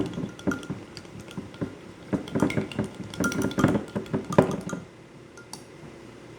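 A utensil clinking and tapping against a bowl while stirring a mixture: rapid irregular taps with a short ringing tone, stopping about five seconds in.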